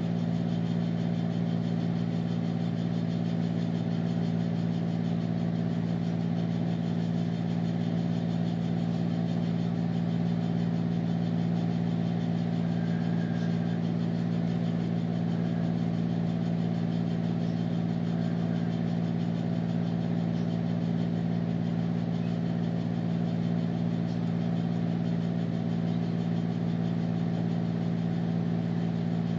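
A steady, low machine hum that holds one unchanging pitch throughout.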